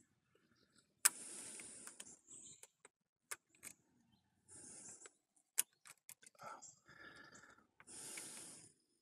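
A person breathing slowly and quietly close to the microphone, three breaths about three seconds apart, with a few faint clicks between them.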